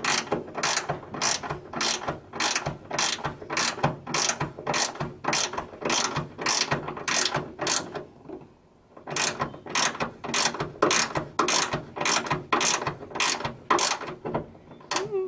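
Ratchet spanner clicking in quick, even back-and-forth strokes, about two a second, as a bolt is tightened; it pauses for about a second just past halfway, then carries on.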